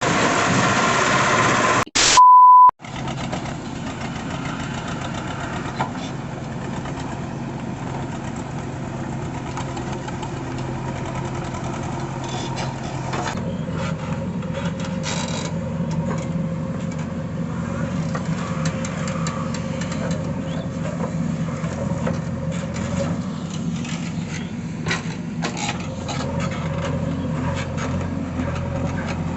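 A short loud opening sound and a steady beep in the first three seconds. Then a heavy diesel machine's engine runs steadily, stepping up to higher revs about 13 seconds in.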